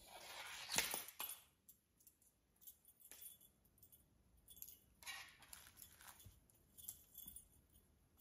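Felt cat play mat rustling and scraping as cats paw at it and a toy is pulled across and under it. The sound comes in short faint bursts with a few small clicks, the longest and loudest in the first second or so.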